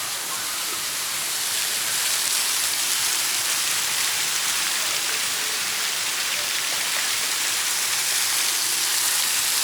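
Water fountain spraying: a steady hiss of falling, splashing water that grows a little louder in the first couple of seconds.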